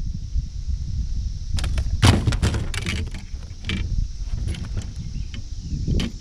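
A cluster of sharp clattering knocks, about a second and a half in, as a caught fish is handled and unhooked on the floor of a small fishing boat, with a few weaker knocks after. A steady wind rumble on the microphone runs underneath.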